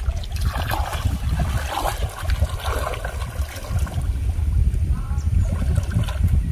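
Water splashing and trickling as a fishing hook is set back in the water, over a steady low rumble.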